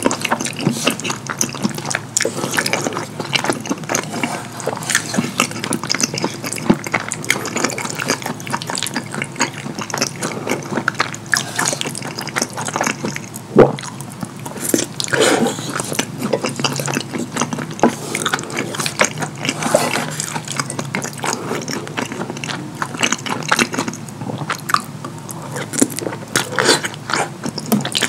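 Close-miked wet chewing, lip-smacking and slurping of saucy fettuccine in a creamy rosé sauce, full of small sticky mouth clicks. One sharp knock about halfway through is the loudest moment.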